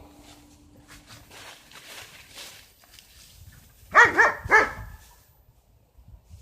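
A dog barking three times in quick succession.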